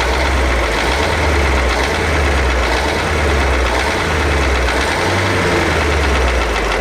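A YaMZ-238 V8 diesel in a KamAZ truck running steadily at raised revs. It has a knock that the owner suspects comes from the seventh cylinder.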